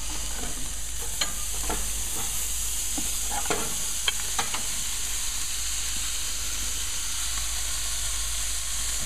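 Sauce-coated beef short ribs sizzling on the hot grates of a Weber Genesis Gold gas grill, a steady hiss. Scattered clicks and knocks in the first few seconds as the pieces drop from the bowl onto the grate.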